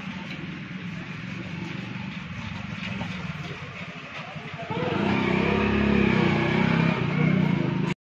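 Motorcycle engine running as it passes on the street, getting clearly louder about five seconds in.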